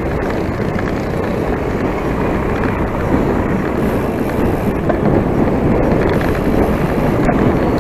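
Wind buffeting the microphone of a moving bicycle, with road rumble: a steady, loud, low rushing noise that grows a little louder about halfway through.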